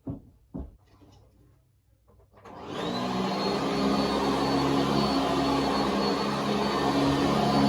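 Sanitaire Tradition SC679K upright vacuum cleaner switched on after a couple of clicks. Its motor spins up about two and a half seconds in and then runs steadily, with a high whine over a low hum.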